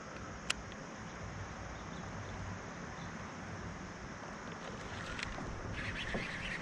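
Wind on the microphone over a steady outdoor hiss, with one sharp click about half a second in. Near the end a rapid churning or rustling starts up.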